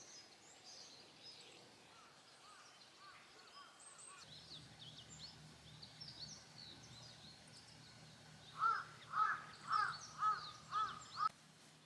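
A crow cawing six times in quick succession near the end, over faint high chirps of small birds.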